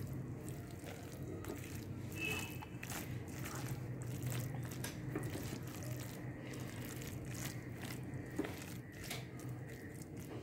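Green spatula stirring and scraping a moist vegetable-and-egg stir-fry in a nonstick pan: soft, irregular scrapes and pats, with a low steady hum underneath.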